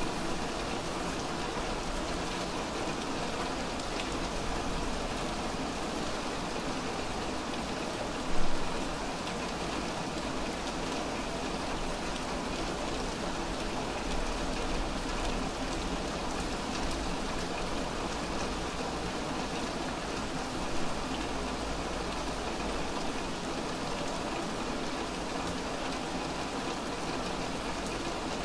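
Steady rain falling on a wet street, with one sharp, louder knock about eight seconds in.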